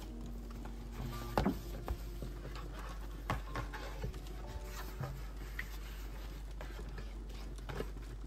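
Paper being handled: a kraft-paper folder opened and a stack of paper cards slid out and leafed through, giving a few crisp rustles and light taps, the strongest about a second and a half in. Soft background music plays underneath.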